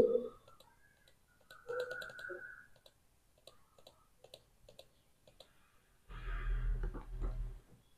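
Computer mouse clicking: a string of light clicks about every half second. About two seconds in a brief steady tone sounds, and near the end comes a burst of noise with a low hum, lasting about a second and a half.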